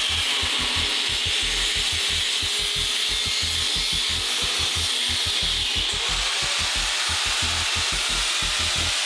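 A power tool cutting through the steel frame tubing of an old quad: a steady, harsh cutting noise, strongest high in pitch, running without a break.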